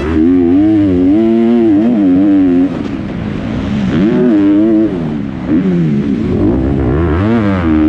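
Kawasaki 250cc four-stroke motocross bike engine at race pace, heard from on the bike: the revs climb and fall over and over as the throttle is opened and closed through the turns, with short lulls where the rider backs off a little under a third of the way in and again past halfway.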